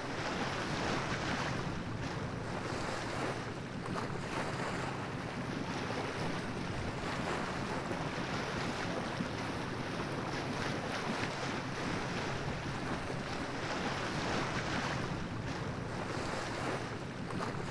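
Steady rush of wind on the microphone mixed with sea water washing, as heard on a sailboat under way.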